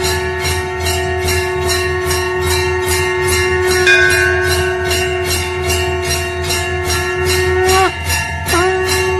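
Conch shell (shankh) blown in one long held note. About eight seconds in, the note sags in pitch and breaks off, then starts again. Under it, bells ring in an even rhythm of about three or four strokes a second.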